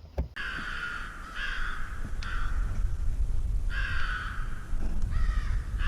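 Crows cawing: harsh, repeated caws in runs of several, with a short pause in the middle.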